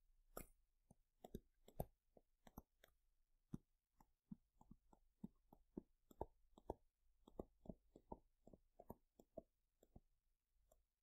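Near silence with faint, irregular taps and clicks, about two to three a second, of a stylus writing on a tablet.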